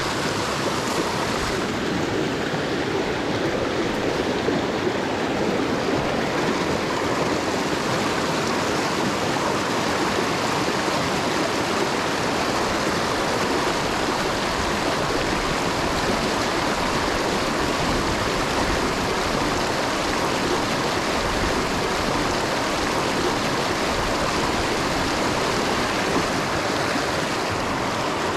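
Mountain stream rushing: a steady, unbroken water noise.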